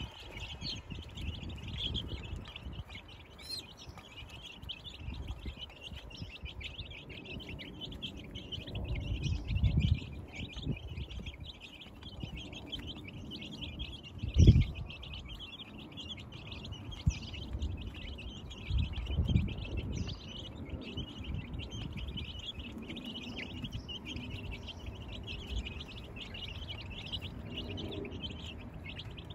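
A flock of two- and three-week-old chicks peeping continuously, a dense chatter of high chirps. A few low rumbles come through underneath, the loudest a short thump about halfway through.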